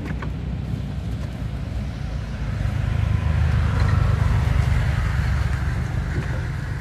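Motor vehicle engine rumbling, growing louder for a few seconds in the middle and then easing off, as of a vehicle passing on the road.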